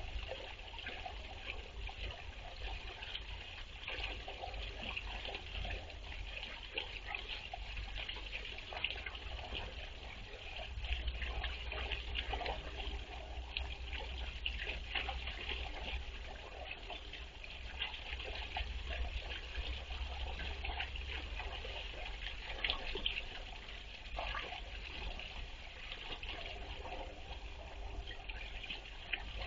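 Water trickling steadily into a small garden pond, with a steady low rumble underneath.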